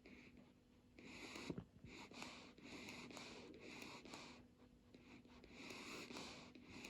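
Faint breathing of a dog dozing off: soft, hissy breaths through the nose, about one a second.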